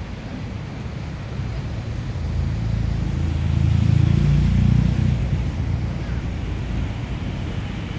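A motor vehicle passing close by: a low rumble that swells to a peak about four to five seconds in, then fades back into steady traffic noise.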